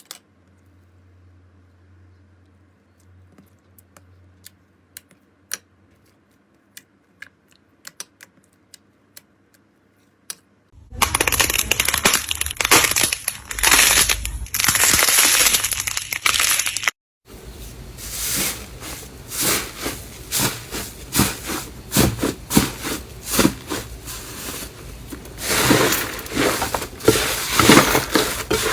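Hands working slime. It starts with sparse small clicks and pops. About 11 seconds in comes dense, loud crackling and crunching, which stops abruptly near 17 seconds, and then a run of repeated crackling squishes and pops.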